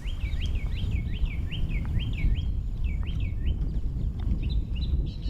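A bird calling outdoors: a quick series of short, sharp chirps, about four a second, then a few fainter, higher notes near the end, over a steady low rumble.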